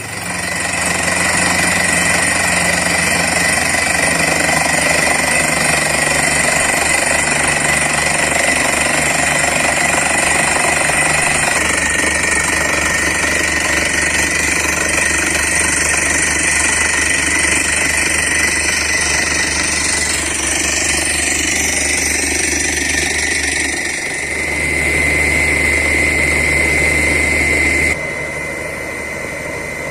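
Borewell drilling rig running: the air-driven down-the-hole hammer pounding rapidly at the bottom of the bore, with the compressor running steadily. The sound is loud throughout and drops in level near the end.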